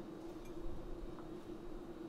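Quiet room tone with a steady low hum and a few faint ticks.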